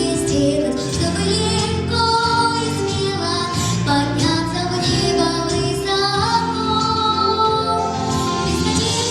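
A female voice singing a song with instrumental accompaniment, holding long sustained notes.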